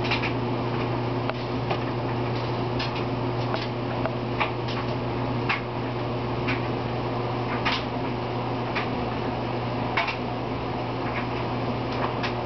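A steady low hum, with light irregular clicks and ticks about once a second.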